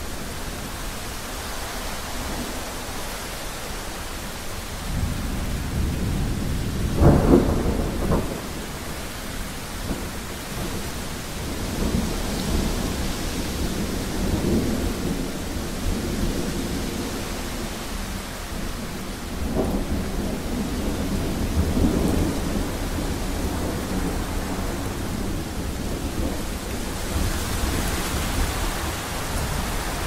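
Thunderstorm: steady rain with rolling thunder. A sharp thunderclap comes about seven seconds in, rumbles swell and fade through the middle, and another crack of thunder comes about twenty seconds in.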